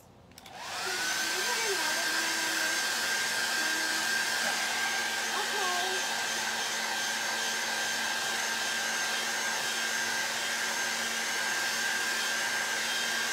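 Handheld hair dryer switched on about half a second in, its motor whine rising as it spins up and then holding steady over a loud rush of air. It is blowing on freshly applied Chalkology ink under a silk-screen transfer to dry it.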